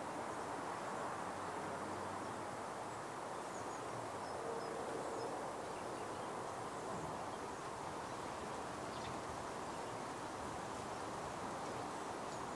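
Steady outdoor background noise, with faint, short, high bird chirps now and then in the distance.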